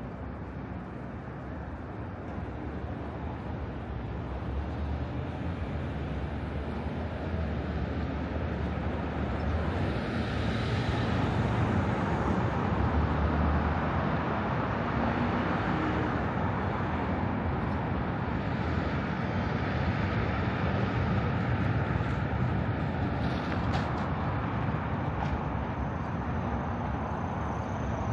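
Steady outdoor road traffic noise with some wind on the microphone, growing louder over the first half and then holding steady.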